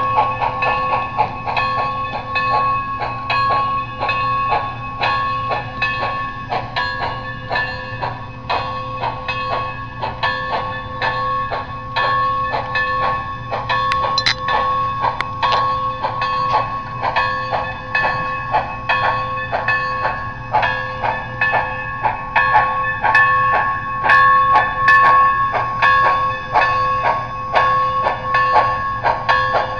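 Model Union Pacific steam locomotive's onboard sound system, giving a fast, even run of chuffs over a steady ringing tone as the passenger train rolls in.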